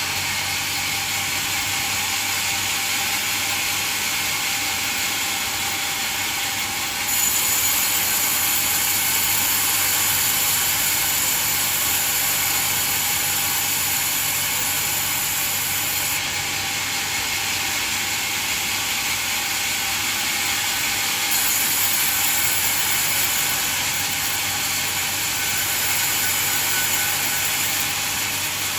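Band sawmill running, its blade cutting through a coconut log with a steady, hissing rasp. A thin high whine comes in about seven seconds in, drops away partway through, then returns.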